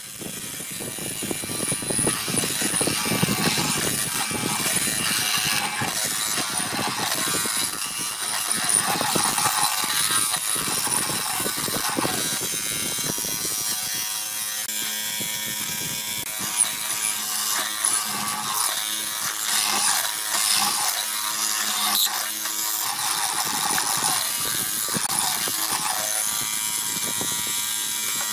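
Benchtop hollow-chisel mortiser running, its square chisel and auger bit plunged again and again into a wooden block to cut a mortise, with an uneven grinding as the chips are bored out.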